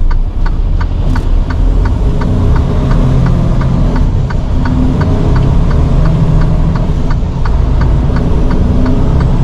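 Semi-truck's diesel engine idling in the cab at a stop, with the turn signal ticking evenly, about two to three ticks a second, for a left turn.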